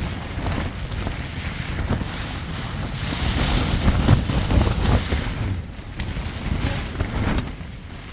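Strong storm wind rushing and gusting, with heavy wind noise buffeting the microphone; a gust swells about three seconds in and eases near the end.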